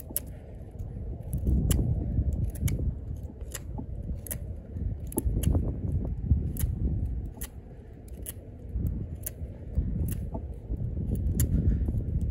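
A 420HC steel fixed-blade knife carving a point on a wooden stick: a steady run of short, sharp cutting strokes, about two a second, as the edge shaves wood away.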